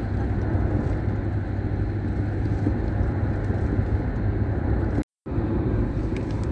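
Steady low rumble of road and engine noise inside a moving vehicle's cabin, with the sound cutting out completely for a split second about five seconds in.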